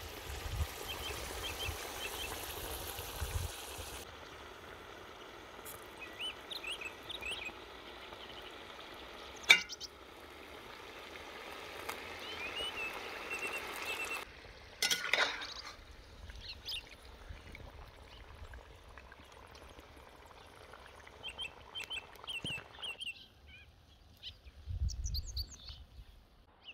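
Young potatoes frying in hot oil in a cast-iron kazan, a steady sizzle, with small birds chirping throughout. A single sharp knock about ten seconds in; the sizzle drops away near the end, leaving the birdsong.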